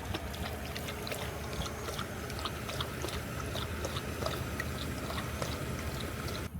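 Golden retriever lapping water, a run of quick small wet clicks, with wind rumbling on the microphone.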